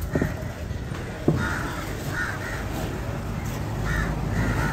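Crows cawing several times in short calls, with two cleaver chops on a wooden block through tuna flesh, the louder about a second in.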